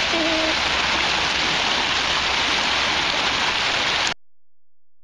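Rushing water of a fast-flowing, swollen river, a steady loud hiss that cuts off suddenly about four seconds in. A brief call is heard near the start.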